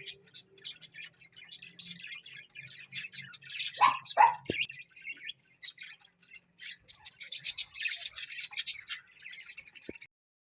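Pet parrot chirping and chattering in quick high runs, with two loud falling squawks about four seconds in. The chirping stops just before the end.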